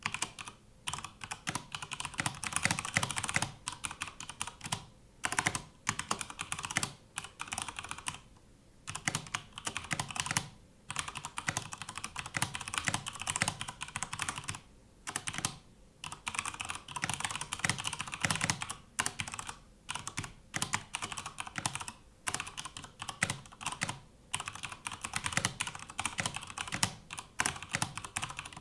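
Cooler Master MK750 mechanical keyboard being typed on in fast, dense runs of keystrokes, broken by brief pauses every few seconds.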